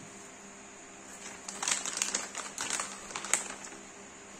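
Clear plastic stationery-kit pouch crinkling and rustling in a run of bursts with sharp clicks, as hands rummage inside it and pull out pencils. It starts about a second in and dies away shortly before the end.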